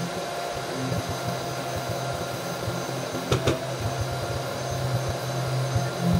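A small motor, likely a workshop power tool, running steadily with a constant whine. There is one brief knock about three and a half seconds in.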